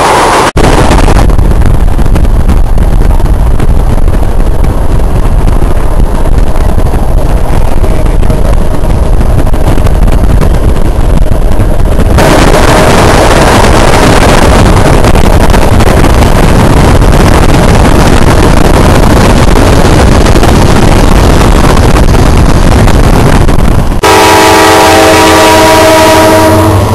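Loud, low rumble of a freight train running. About 24 seconds in, a locomotive air horn starts sounding a steady multi-note chord.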